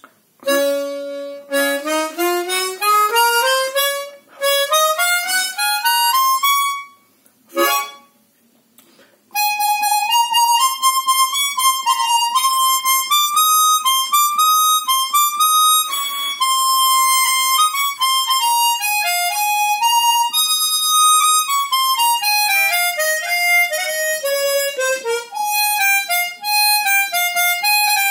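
Harmonica played as a sound check after servicing, its reed plates and covers just refitted. It opens with a rising scale of single notes, pauses briefly, then plays a melody with runs up and down. The notes sound clear.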